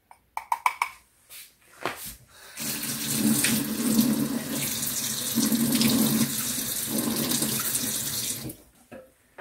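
Kitchen faucet running for about six seconds, water filling a small glass measuring cup to mix a cornstarch slurry, then shut off. A few light clicks of a measuring spoon come before it.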